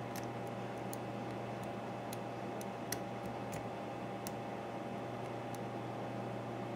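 Faint, irregular light clicks of a homemade hook pick and paperclip tension wrench working the pins of an American Series 5200 padlock, over a steady electrical hum. One sharper click comes about three seconds in.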